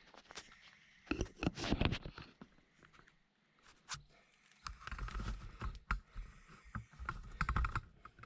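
Rapid sharp clicking and clattering in three short bursts, a little over a second in, about halfway through, and near the end, like hard parts or tools being handled.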